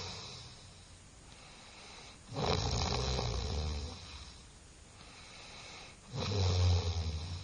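A person snoring loudly and rhythmically, one long snore about every four seconds: one fades out at the start, a full snore comes about two seconds in, and another begins near the end.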